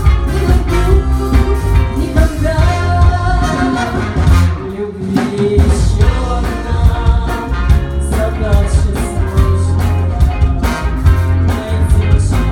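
Live band playing a rock song with singing, drums, bass and guitar. The bass and drums drop out briefly about five seconds in, then come back.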